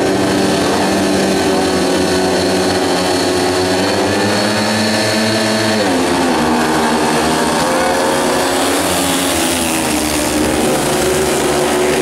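Several speedway bikes' single-cylinder methanol-fuelled engines revving together at the start line, then pulling away hard about six seconds in, the pitch dipping and then climbing as they accelerate toward the first bend.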